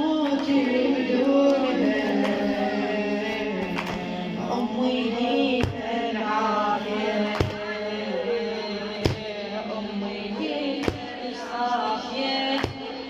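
Song music with a flowing melodic line and a sharp drum stroke about every second and three-quarters, beginning about halfway through.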